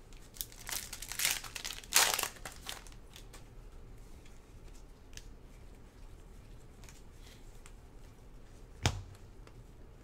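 Foil trading-card pack being torn open and crinkled, a run of crackling tears loudest about two seconds in. Then faint ticks of cards being handled and a single sharp tap near the end.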